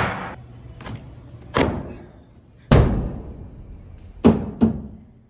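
Heavy knocks on wood, about six at uneven intervals with one faint, each dying away quickly, the loudest a little past the middle: log cabin timbers being struck or set into place during assembly.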